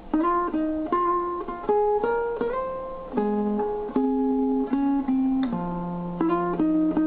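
Music: a melody of single plucked string notes, guitar-like, each note struck and left to ring, with a low note held under the last few notes.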